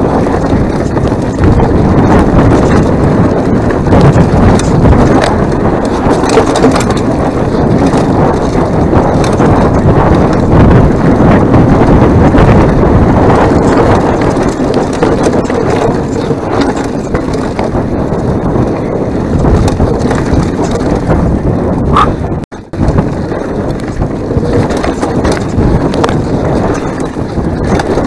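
Mountain bike clattering down a rocky enduro trail, heard from a bare camera on the rider's chest: a loud, unbroken rattle of many small knocks from tyres, chain and frame over stones, mixed with wind rumble on the microphone. The sound drops out for a moment about three-quarters of the way through.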